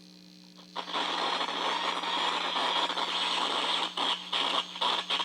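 Cheap battery-powered world-band radio touching an aluminium screen, putting out loud crackling static that starts abruptly about a second in and keeps fluctuating, over a steady low hum. The owner takes the fluctuating static for pulsed radio-frequency harassment.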